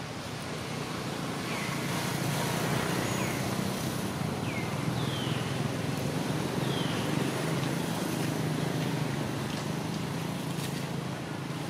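Steady outdoor rushing noise that grows a little louder about two seconds in, with five short, high, falling chirps over the first seven seconds.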